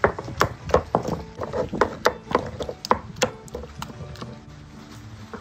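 Volcanic-stone molcajete and tejolote (stone mortar and pestle) knocking and grinding as roasted tomatoes are crushed into salsa: a rapid series of sharp knocks, about three a second, that thins out about four seconds in.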